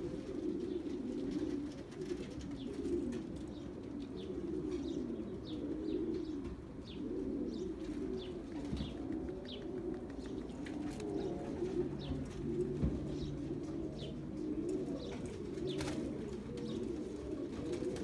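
Many racing pigeons cooing all at once, a continuous overlapping burble. Short high chirps come and go through the middle of it.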